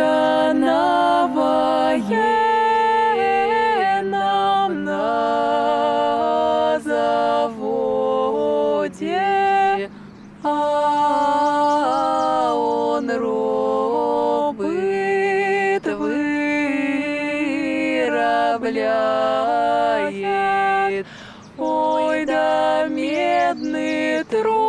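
A small vocal ensemble singing a cappella in close harmony, with several voices holding chords together and no instruments. There are brief breaths between phrases, at about ten seconds and again just after twenty.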